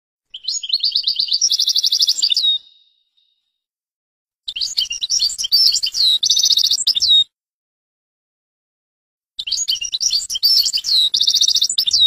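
European goldfinch singing three high-pitched twittering song phrases, each about two and a half seconds long, with silent pauses between them. Each phrase mixes quick varied notes with a fast, even trill.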